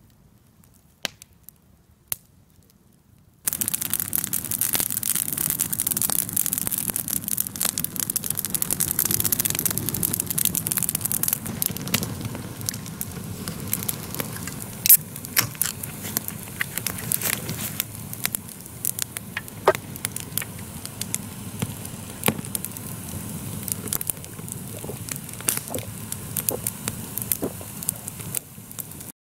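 Wood campfire burning, crackling and popping with many sharp snaps. It starts suddenly about three seconds in after a few faint clicks, thins somewhat in the second half and cuts off abruptly near the end.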